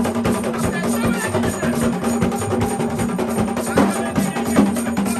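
Live Haitian Vodou ceremonial drumming and percussion playing a dense, steady rhythm.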